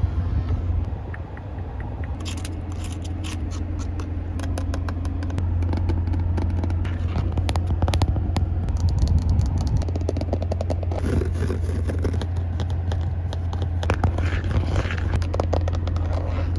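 Quick ASMR tapping and scratching, many sharp clicks and scrapes in fast succession, over a steady low rumble.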